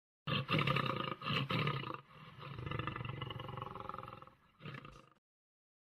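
A big cat roaring: a loud first roar, a longer drawn-out second one, and a short last one that cuts off suddenly.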